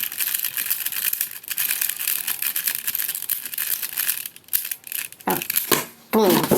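Plastic speed cube being turned rapidly: a dense run of clicks and clacks that thins out about four seconds in, followed by a brief voice near the end.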